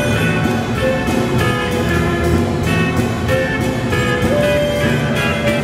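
A live small band playing a swing tune: a drum kit keeping a steady beat under electric bass and electric guitar, with a wind instrument playing held notes.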